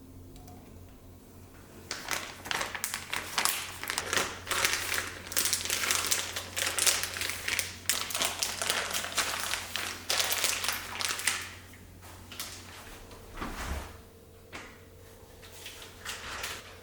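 Kitchen handling noise: a long run of irregular rustling and crinkling for about nine seconds, then a few quieter knocks near the end.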